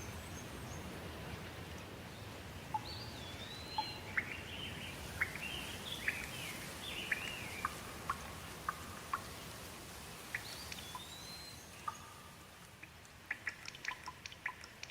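Steady rain falling, with a bird calling in short phrases that slide up and down in pitch through the middle. Near the end the rain thins out to separate drops ticking.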